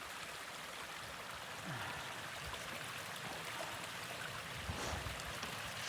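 Steady rush of a stream's running water, fairly faint, with a soft knock about three-quarters of the way through.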